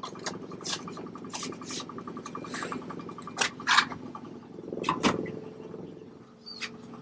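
A steady low engine hum, like a vehicle idling, with a fast even ticking under it. About eight to ten sharp clicks and knocks, as of tools being handled, are scattered over it.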